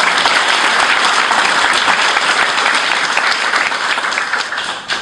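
An audience applauding: many hands clapping steadily, thinning out near the end.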